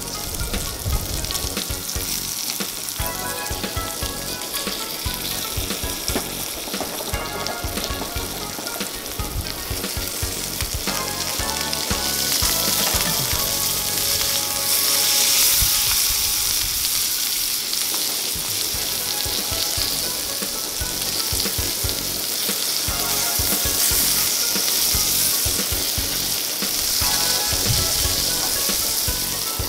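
Green beans, asparagus, carrot and garlic sizzling and bubbling in oil and water in a small cast-iron skillet, a steady frying hiss that swells louder twice.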